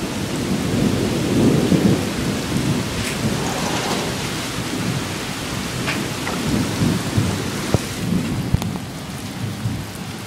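Steady rain with a low rumble of thunder rolling and slowly dying away. A few sharp taps of drops sound in the last few seconds.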